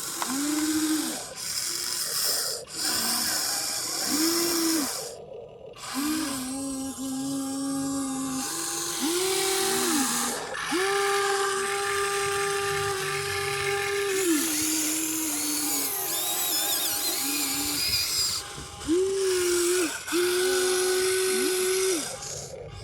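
Electric motors of a radio-controlled model construction vehicle whining in a series of stop-start runs, each one rising in pitch as it starts and dropping off as it stops, the longest lasting about three seconds.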